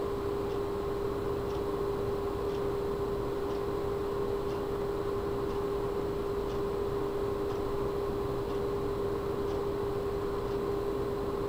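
EK-XRES 140 Revo D5 PWM water-cooling pump running at full speed (100% PWM, about 4,800 RPM): a steady whir with a constant mid-pitched tone over a hiss of air, with the PC's case fans spinning at 40% underneath.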